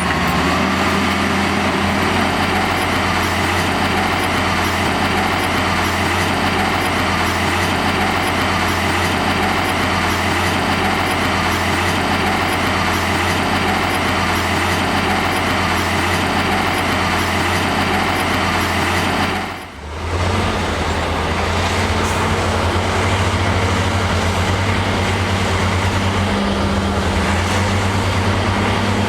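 Heavy diesel earth-moving machinery running steadily with a deep drone. About two-thirds of the way in, the sound dips briefly and then carries on.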